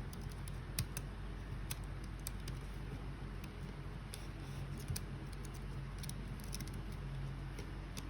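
Light, irregular clicks and taps of small tools and parts being handled, roughly one a second, over a steady low hum.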